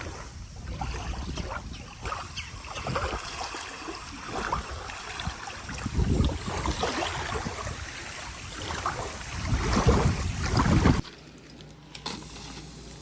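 Wind blowing on the microphone beside a lake, with gusts getting louder and water washing at the shore. About 11 s in it cuts off suddenly to a quieter steady background.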